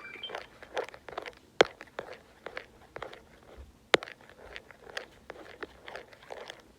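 A string of light, irregular taps and clicks, about two or three a second, some with a short scuffing smear, with a brief electronic beep ending right at the start.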